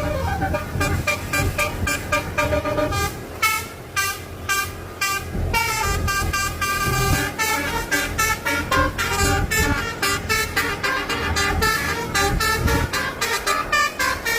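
Multi-tone basuri 'telolet' horn playing a fast melodic run of short notes, over a low engine rumble.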